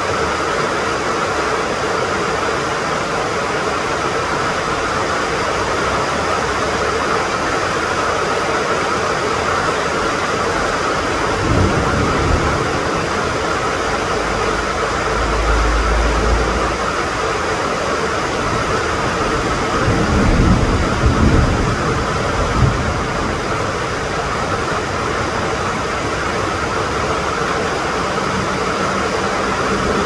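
Heavy rain falling steadily, a dense even hiss. Three brief low rumbles rise under it, the loudest about two-thirds of the way through.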